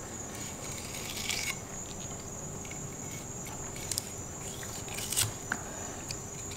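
A steady high-pitched insect trill, with a few soft clicks and scrapes from a fillet knife cutting along the side of a fish.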